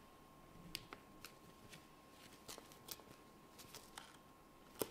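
Scattered light clicks and taps of a kitten's paws and claws on a hard floor as it stalks and pounces on a toy mouse, with one sharper knock near the end.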